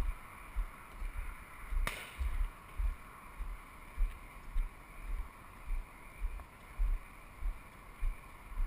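A single shotgun shot about two seconds in, a sharp crack with a short ringing tail. Under it, low rumbling thumps on the microphone come and go about twice a second.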